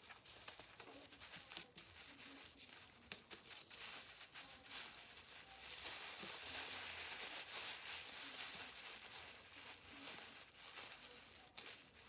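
Plastic bag crinkling and rustling as it is stuffed into a sock, faint and irregular, busiest in the middle.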